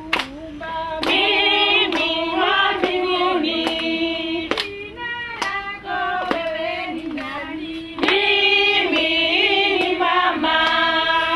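Singing in high, female voices, several together, with long held, wavering notes and sharp percussive strokes through it.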